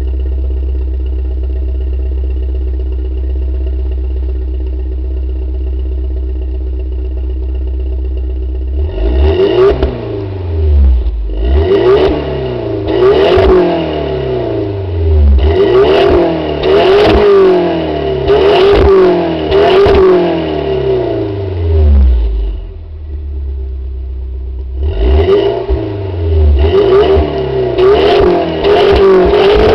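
Audi TT 1.8T (BAM) turbocharged four-cylinder engine breathing through an Inoxcar sport exhaust with the muffler and catalytic converter removed. It idles steadily at first, then is revved in a series of short throttle blips, rising and falling quickly, with sharp cracks among them. It settles briefly to idle, then is blipped again near the end.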